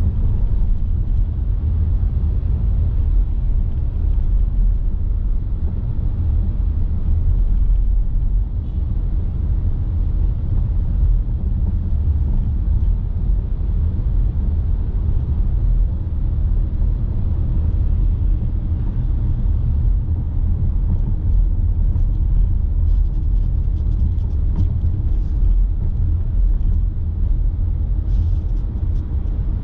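A car driving, heard as a steady low rumble of engine and road noise, with faint light ticks in the last few seconds.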